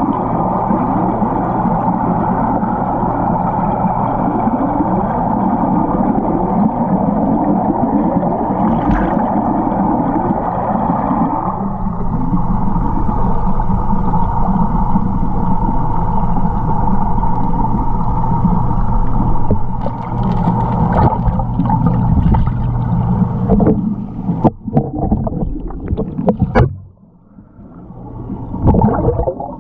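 Muffled underwater noise of churning pond water with a steady low hum, heard by a submerged camera. Near the end a few sharp knocks and brief dropouts break in.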